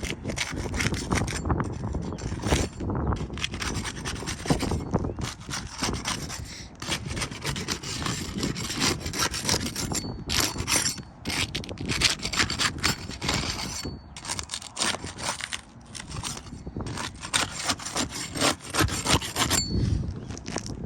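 Rapid, irregular scraping and rasping from a pry tool worked under asphalt roof shingle tabs to break their seal, with short pauses between bouts: the lifting step of a shingle repairability test.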